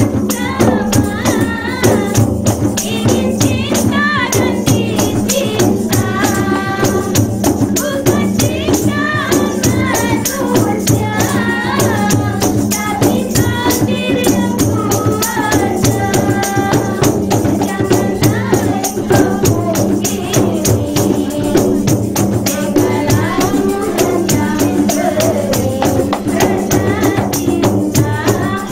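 Rebana frame drums beating a steady rhythm while a woman sings a melody into a microphone.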